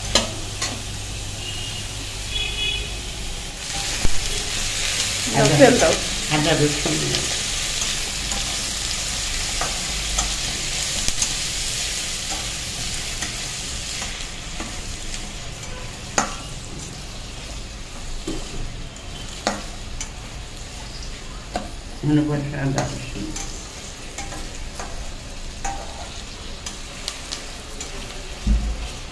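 Food sizzling and frying in a pan while it is stirred, with scattered clicks and scrapes of the utensil against the pan. The sizzle is loudest in the first half. Two short pitched sounds come about six seconds in and again near twenty-two seconds.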